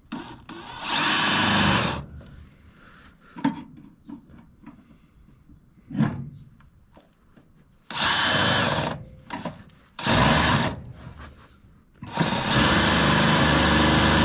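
Handheld power drill run in four short bursts, the motor whining up to speed and stopping, with clicks and knocks of the tool between bursts. The bit is loose in the chuck and will not stay in.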